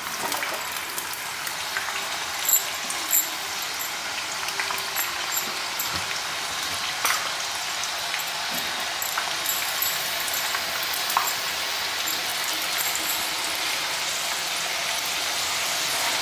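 Potato sticks sizzling as they deep-fry in hot refined oil in a kadhai, the sizzle growing gradually louder as more potatoes go in. A few light clicks of a utensil against the pan sound now and then.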